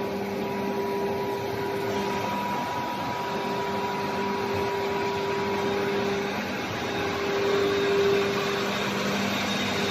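Factory machinery on a fiber cement board production line running steadily: a continuous whir with a droning hum.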